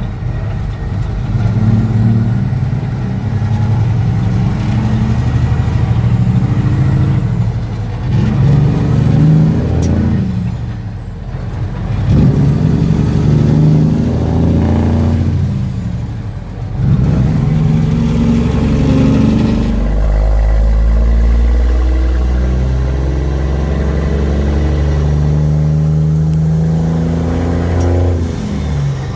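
Cummins heavy-truck diesel engine pulling through the gears: its pitch climbs, drops sharply at gear changes about ten and sixteen seconds in, then runs steadily under load.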